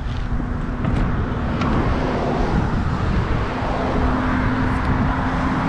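Wind rumbling on the microphone while riding a bicycle, a loud, steady low noise with a faint steady hum underneath.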